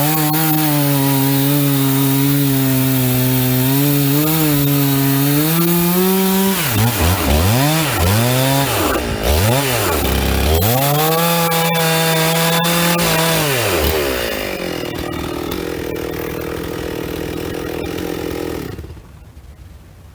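Two-stroke chainsaw cutting through a large pine block at high, steady revs. A third of the way in the revs drop and climb back several times, then hold high again. From about two-thirds through it runs quieter at low revs, and it cuts off suddenly near the end.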